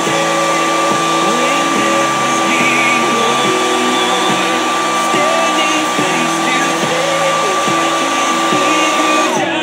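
Hand-held hair dryer running on a freshly painted canvas to dry the paint: a steady rush of air with a motor whine held at one pitch, which sinks away as it is switched off near the end.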